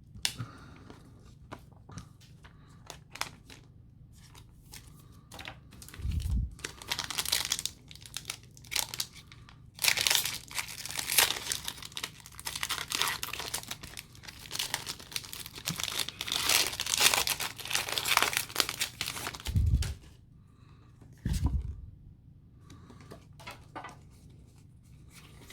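Foil wrapper of a Pokémon booster pack being torn open and crinkled, a dense rustling crackle that runs from about a quarter of the way in until near the end, with light handling clicks before and after and a few dull thumps.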